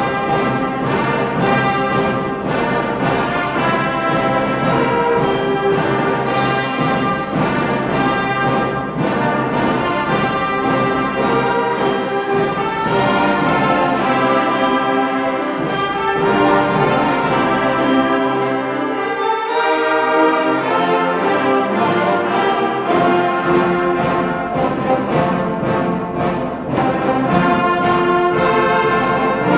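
Full wind band playing, with brass to the fore: loud sustained chords struck by frequent sharp accents. The bass drops away briefly about twenty seconds in, then the full ensemble returns.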